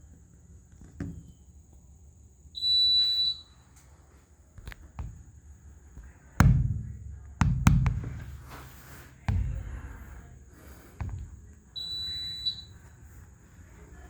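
Fire alarm giving two short, high-pitched test beeps about nine seconds apart, while the building's alarms are being tested. Between the beeps come several heavy thumps, the loudest sounds here.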